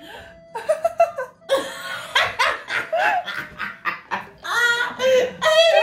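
Women laughing hard, a run of quick, even laughs in the middle and longer, higher laughing near the end.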